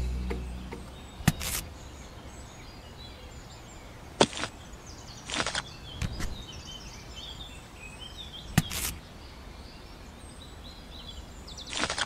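Quiet outdoor background with faint bird chirps, broken by several short, sharp sounds: two close together about a second in, others around four, five and a half and eight and a half seconds, and one at the end.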